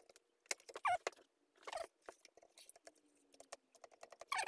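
Scattered small clicks and taps, with two short squeaks falling in pitch, as hands try to lift the cover plate off a BMW i3 inverter; the plate is stuck and will not come away.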